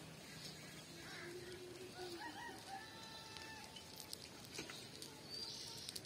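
A rooster crowing faintly: one multi-step crow starting about two seconds in and ending on a long held note. A few faint clicks follow later.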